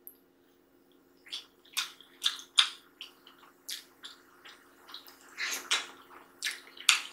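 Close-up wet eating sounds: a scattered series of short sticky clicks and smacks as fingers pick through chicken stew and food is eaten, starting about a second in.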